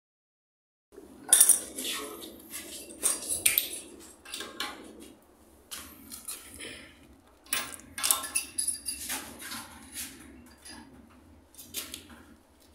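Irregular clinks and knocks of a ceramic one-piece toilet being handled and pushed on its base while it is fitted to the floor, in clusters with the loudest about a second in.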